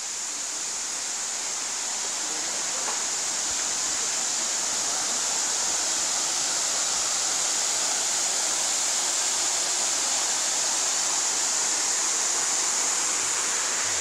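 Waterfall pouring through an opening in a rock cave into a plunge pool: a steady rush of falling water, rising a little in level over the first few seconds and then holding.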